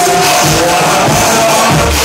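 Loud electronic dance music from a live DJ set played over a club sound system, with a held high tone and a deep bass note coming in near the end.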